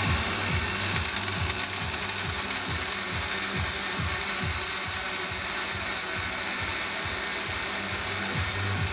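Countertop blender, not a high-speed model, running and grinding pecans into crumbs: a steady mechanical whir with a low rattle pulsing several times a second.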